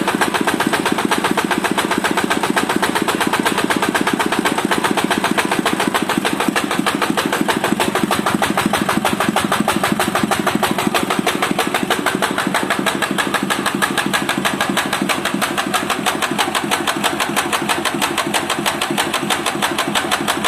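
Walk-behind tractor engine idling steadily with a knock. The knock persists even though the crankshaft and its bearing shells have been replaced with new ones.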